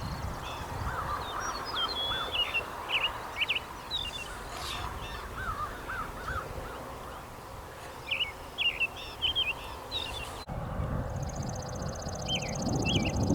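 American robin singing: short phrases of clear, rising and falling whistled notes, repeated with short pauses, over a steady low background rumble. A steady high tone joins about ten seconds in.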